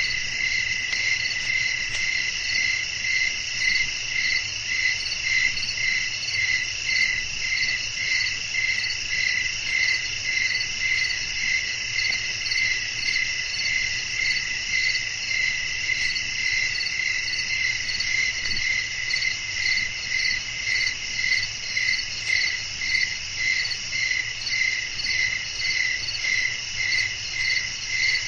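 Crickets chirping in a continuous night chorus: a loud chirp repeating evenly about twice a second over a steady high trill.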